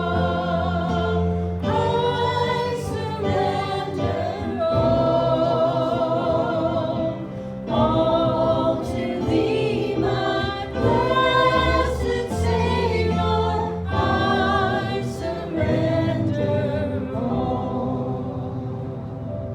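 A choir singing a gospel song over steady low accompanying notes, growing quieter over the last few seconds.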